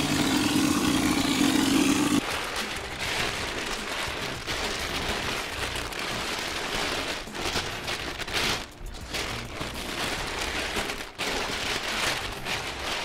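Air-fed hopper spray gun shooting texture mix, a steady hiss with a hum under it, cutting off about two seconds in. Then crackling, rustling masking paper being pulled down and bunched up.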